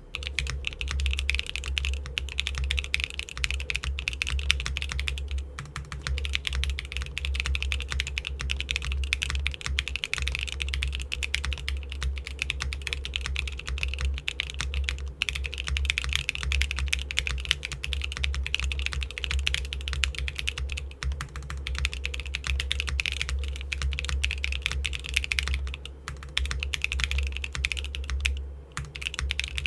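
Continuous fast typing on a Neo65 mechanical keyboard with factory-lubed Gateron Cream Soda switches, PBT keycaps and a carbon fiber plate, built with no foam. The keystrokes come as a dense stream of clicks, with brief pauses about six seconds in and near the end.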